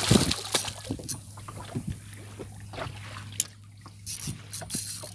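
Water splashing and sloshing at a small boat's side as a hooked fish thrashes at the surface. The splashing is loudest in the first moments, with irregular splashes after, over a steady low hum.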